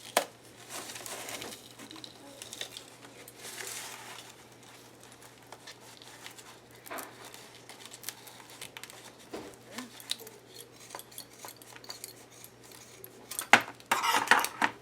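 Handling of a leather belt with a metal buckle: scattered light metallic clinks and rustling as the glued belt is pulled off a book cover, with a burst of louder clicks and clatter near the end.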